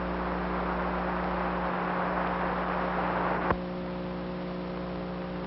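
Open radio channel hiss over a steady electrical hum. About three and a half seconds in, a click cuts the hiss down, leaving mostly the hum.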